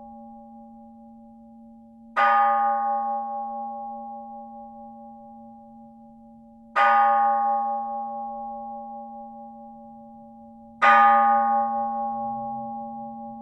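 A bell struck three times, a little over four seconds apart. Each stroke rings out with several clear tones and fades slowly, and a low hum holds on between the strokes.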